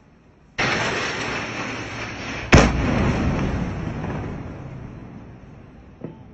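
Airstrike bomb explosion heard across a city: a loud rushing noise sets in abruptly about half a second in, then a sharp blast about two seconds later, followed by a long rumble that slowly fades.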